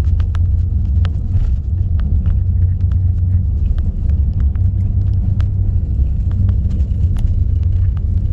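Car driving, heard from inside the cabin: a steady low road rumble with scattered small clicks and knocks throughout.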